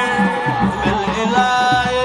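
Senegalese Mouride zikr (sikar) singing: a lead voice holds long, ornamented notes that waver in pitch, over a steady percussion beat.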